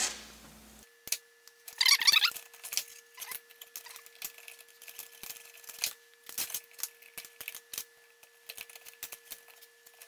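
Scattered clicks, taps and light knocks of a car door latch assembly with its plastic lock actuator and hand tools being handled on a workbench, with a short metallic rattle about two seconds in.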